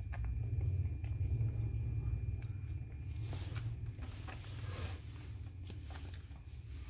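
Newborn poodle puppies suckling at their mother's teats, with faint soft clicks and smacks over a steady low rumble of rubbing and handling.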